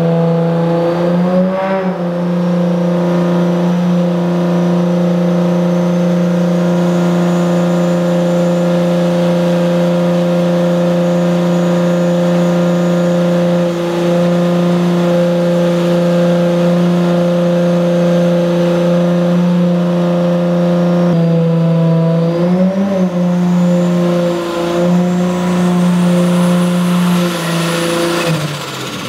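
Turbocharged 1.5JZ inline-six (1JZ head on a 2JZ block) in a Nissan 240SX, running on a Dynapack hub dyno and held at one steady engine speed for about twenty seconds, with a faint high whine above it. About twenty-two seconds in the pitch wobbles, and near the end the engine drops off.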